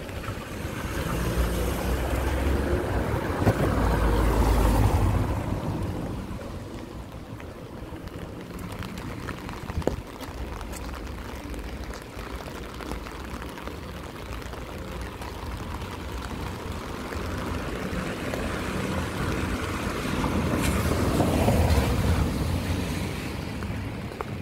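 Rainy street ambience: a steady wet hiss, with vehicle tyres swishing along the wet road. The swish swells and fades in the first five seconds and again about twenty seconds in. A single sharp click comes about ten seconds in.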